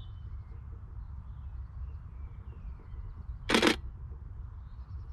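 Nikon D7500 DSLR shutter firing once about three and a half seconds in: a single short mirror-and-shutter clack.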